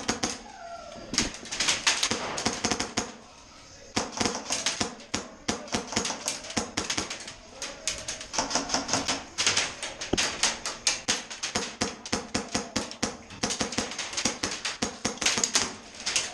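Airsoft guns firing long rapid-fire volleys of sharp clacks, with brief pauses about a second in and again around three to four seconds in.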